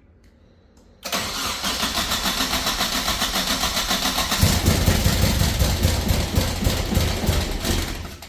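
Nissan 240SX four-cylinder engine being cranked by its starter from about a second in, with even pulsing, then catching and firing roughly about halfway through before dying away near the end. It sounds as if it is running on only two cylinders, a misfire later put down to dirty injectors.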